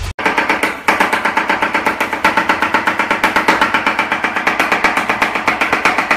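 Chef's knife chopping onion at high speed on a plastic cutting board: a very fast, even rhythm of sharp knocks.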